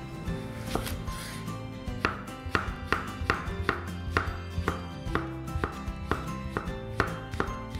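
Chef's knife slicing a cucumber on a bamboo cutting board: quick knife strikes on the board, about two a second, starting about two seconds in, with background music.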